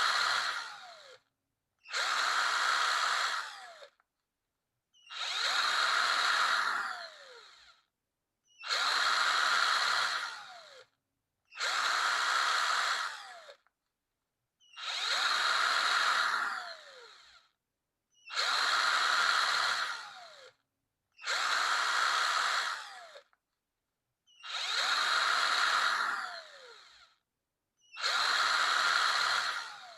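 Electric drill run in about ten short bursts of two seconds or so, separated by silence. Each burst ends with the motor winding down as its pitch falls after the trigger is let go.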